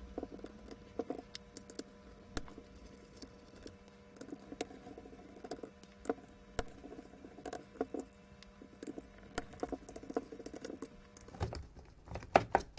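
T10 Torx screws being undone from a cordless drill's plastic housing with a screwdriver: scattered small clicks and ticks over a faint steady hum. Near the end come a few louder plastic clacks as the housing is pulled apart.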